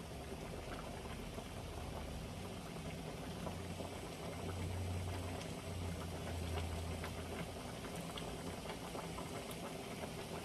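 Beef stew bubbling in a wide pan on the stove: a steady bubbling hiss scattered with small pops, over a low hum that swells in the middle.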